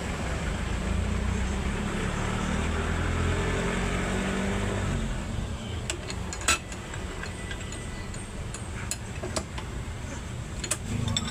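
A vehicle engine running steadily, with a few sharp clinks in the second half.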